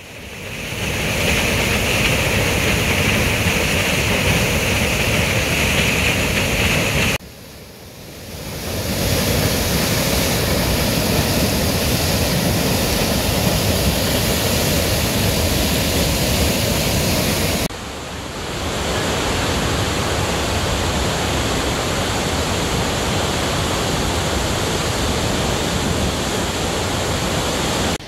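Floodwater from an overflowing reservoir pouring down a dam's concrete spillway in a loud, steady rush of white water. The sound drops out briefly about seven seconds in and again near eighteen seconds, then comes back.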